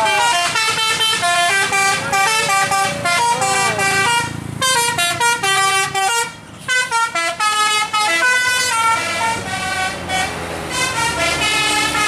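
Tour bus telolet horn, a set of air-horn trumpets, playing a quick melody of stepped notes over and over. It breaks off briefly about four and six seconds in, then plays on.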